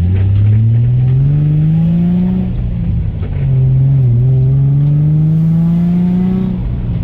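Nissan 350Z's 3.5-litre V6, fitted with aftermarket headers, Y-pipe and single-exit exhaust, accelerating through the gears. The engine note rises steadily, falls at a gear change about two and a half seconds in, rises again, and falls at another gear change near the end.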